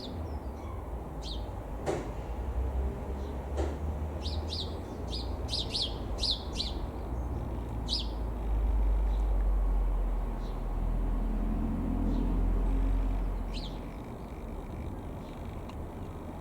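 Small birds chirping in quick runs of short, high notes over a low rumble, which swells for several seconds in the middle.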